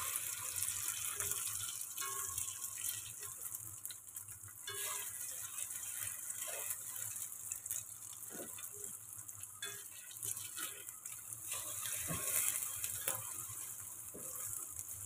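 Egg omelette frying in oil in a hexagon-patterned stainless pan, a steady sizzle, with the scrapes and taps of a plastic slotted spatula against the pan as the omelette is folded and turned.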